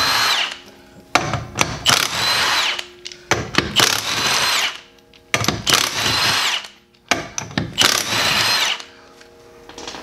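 Milwaukee M18 Fuel cordless impact wrench spinning off a car's lug nuts one at a time: about five short runs of roughly a second each, every one starting with a rising whine, with brief pauses in between as the socket moves to the next nut.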